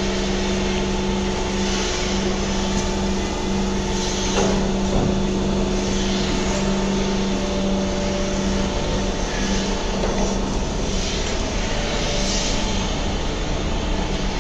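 Milking parlour's milking machine running while the clusters milk the cows: a steady hum with a constant tone, and a few faint hisses.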